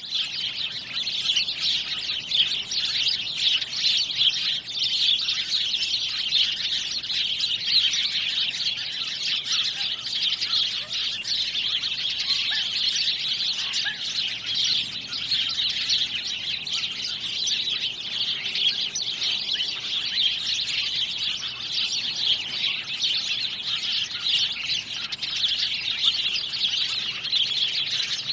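Many songbirds chirping and singing at once in a dense, continuous chorus.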